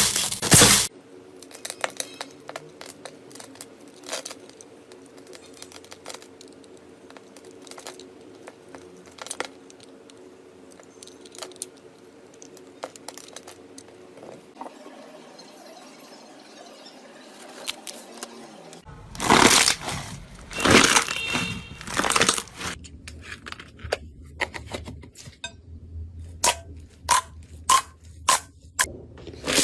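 Slime being squeezed, stretched and poked by hand: soft crackling and crinkling through a quieter stretch, louder squishing bursts, and near the end a run of sharp little pops.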